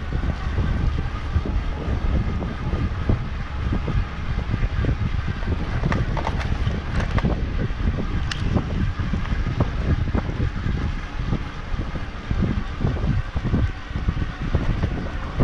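Wind buffeting the microphone during a ride on a folding e-bike, a continuous rumble that surges and dips unevenly.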